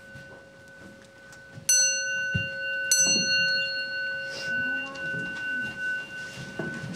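A Buddhist temple bowl bell struck twice, about a second apart, each strike ringing on with several clear tones over a hum still sounding from an earlier strike. Soft rustling of people moving.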